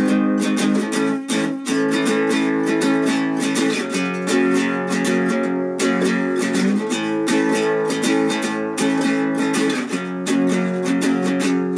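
Nylon-string classical guitar played as an instrumental passage, a steady run of chords with no voice.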